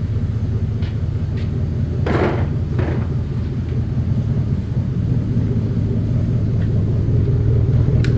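A vehicle engine idling steadily nearby, a low rumble, with two short scraping sounds about two and three seconds in and a click near the end.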